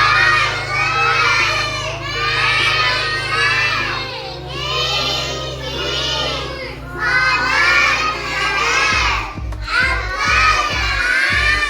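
A class of young children shouting answers together in loud bursts, about one every two seconds. Under them runs background music with a low bass line, which turns into a beat about nine seconds in.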